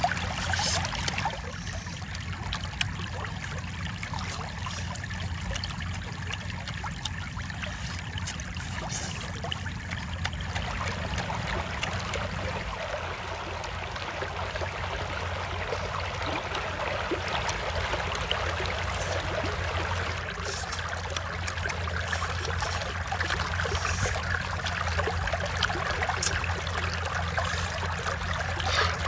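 Shallow water flowing and trickling steadily, with a few brief crunches from chewing grilled eel.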